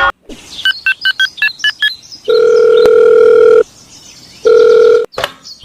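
Telephone call sound effect: about eight quick keypad beeps of varying pitch, then the ringing tone of the call, one long ring and a shorter second one.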